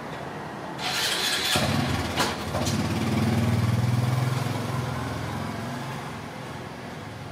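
A motor vehicle engine off-screen: it rises loudly about a second in, with a sharp click near two seconds, runs loudest around three to four seconds and then fades away.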